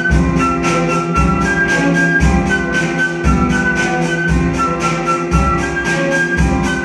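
Music with a steady beat: a quick ticking pulse over a low beat about once a second, with a high melody line on top.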